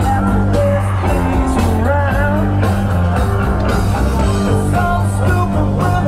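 Rock music with a singer over steady bass and drums.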